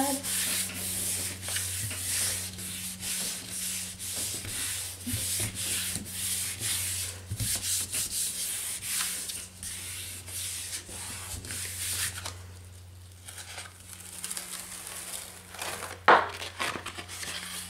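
Hands rubbing the back of a sheet of paper laid over a stencil on a gel printing plate: a fast, uneven hiss of palms and fingers sliding over paper, which eases off about twelve seconds in. About four seconds before the end comes one sharp peeling sound as the paper and stencil are lifted off the tacky plate, with a steady low electrical hum underneath.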